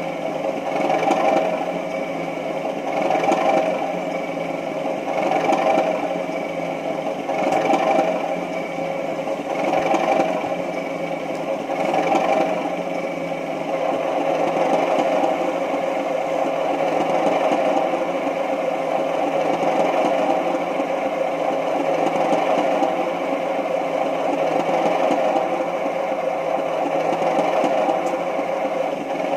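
Sound decoder in a Heljan O gauge Class 37 model, playing a Class 37's English Electric diesel engine idling through a large speaker. For roughly the first half the engine swells in a regular pulse about every two seconds, then settles to a steadier run.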